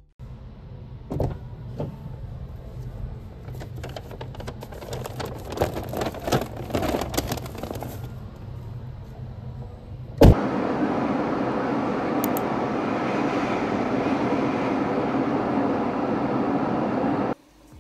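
Crinkling and rustling of a large paper shopping bag being set down on a car's back seat, with small knocks. About ten seconds in comes a single loud thump, then the steady road and engine noise of a car driving, heard from inside the cabin, which cuts off near the end.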